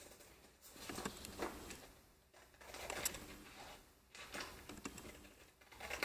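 Faint scratching of a blade cutting through a paper template, in short runs of strokes with brief pauses between them.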